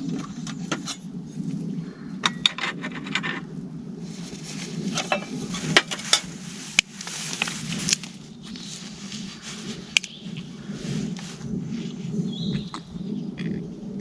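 Scattered clinks, taps and knocks of metal camp cookware and utensils being handled, irregular and spread through the whole stretch.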